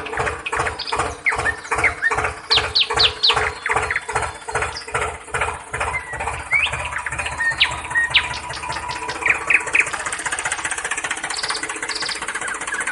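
Heavy diesel engine of an excavator or dump truck chugging at about four beats a second, settling into a faster, evener run about two-thirds of the way through, with short high chirps scattered over it.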